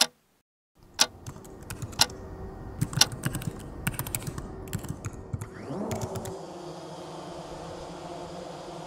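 Typing on a laptop keyboard: irregular sharp key clicks over a low hum. About six seconds in, the clicks stop and a steady hum takes over.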